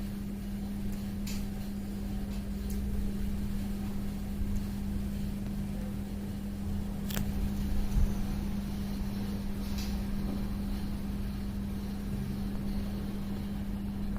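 A steady low mechanical hum with a rumble underneath, and a few faint ticks here and there.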